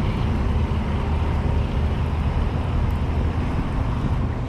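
Steady, loud low rumble with a hiss above it and no distinct events.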